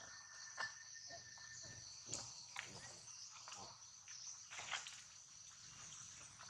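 Faint, steady high-pitched insect drone, with scattered soft clicks and scuffs and a thin steady tone for about the first two seconds.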